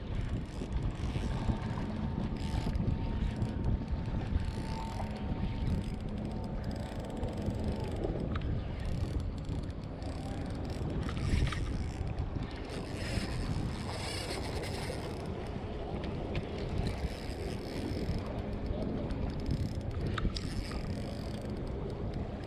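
Wind buffeting the microphone in a steady rumble. A thin, steady whine is heard for several seconds in the first third, and a few sharp clicks come later.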